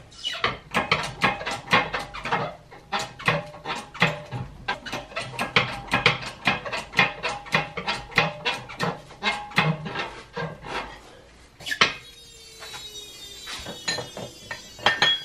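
Hand-worked 10-ton hydraulic shop press clicking rapidly, about four or five clicks a second, as it is pumped against a hub part. About twelve seconds in comes one sharp metallic bang, the pressed part giving way, followed by metallic ringing.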